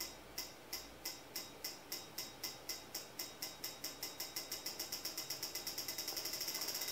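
Common rail diesel injector clicking as the injector tester pulses its solenoid, the 'da da da' of a connected, working injector. The clicks speed up steadily from about three a second to a fast rattle as the pulse frequency is turned up.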